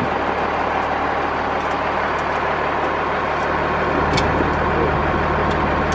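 Vehicle engine idling steadily, with a brief sharp tick about four seconds in.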